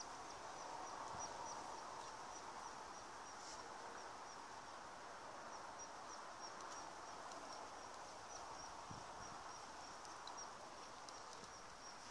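A small animal's high, short chirp repeated evenly, about three times a second, over a soft steady outdoor hiss.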